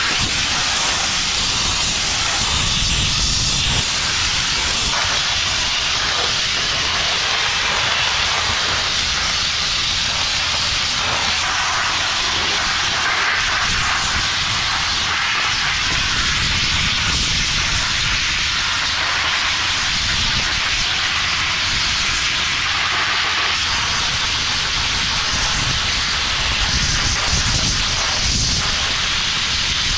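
Abrasive blast nozzle running continuously, a loud steady hiss of compressed air and grit striking the steel tipper body, stripping rust and paint back to bare steel.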